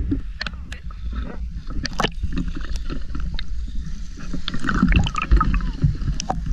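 Sea water sloshing and splashing against a camera held right at the surface, a constant low rumble with many small irregular splashes and drips.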